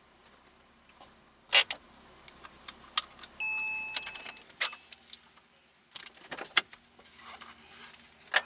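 Clicks, knocks and rustling of things being handled inside a stopped car's cabin, the loudest a sharp knock about a second and a half in. One electronic beep, just under a second long, sounds about three and a half seconds in.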